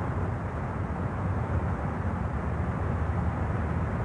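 Steady low rumble of car engine and road noise in city traffic.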